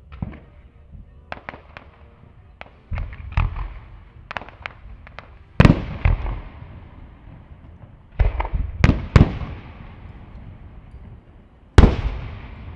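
Aerial fireworks shells exploding: quicker, lighter pops and cracks over the first few seconds, then a loud bang about halfway, three more in quick succession a little later, and one near the end, each loud bang trailing off in a long rumbling fade.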